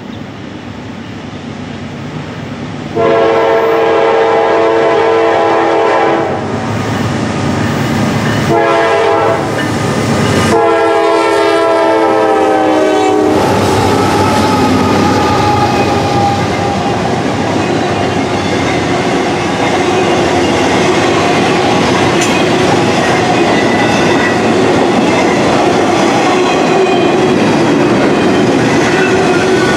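Norfolk Southern GE D9-40CW diesel freight locomotive approaching and sounding its multi-chime air horn in three long blasts, the last ending about halfway through as the locomotives reach and pass. Then a double-stacked intermodal container train rolls by with steady wheel-on-rail noise and clickety-clack over the rail joints.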